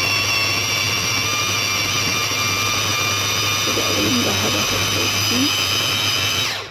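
Tefal electric mini chopper's motor running at a steady pitch as it blends tomato peels into a purée, then cutting off abruptly near the end.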